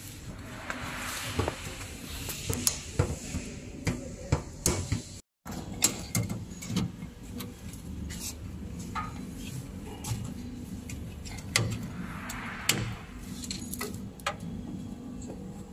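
Irregular clicks and clatter of heavy-duty multi-pin industrial cable connectors being handled and plugged into a machine cabinet, over a faint low steady hum.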